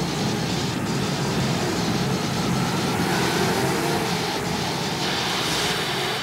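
Loud, steady rumbling noise, a drama soundtrack effect, with a few faint clicks through it; it cuts off abruptly at the end.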